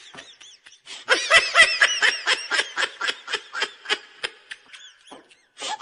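A person laughing in a high-pitched voice: a rapid run of short 'hee-hee' laughs, about four or five a second, that starts about a second in and fades out near the end. A fresh burst of laughter begins right at the end.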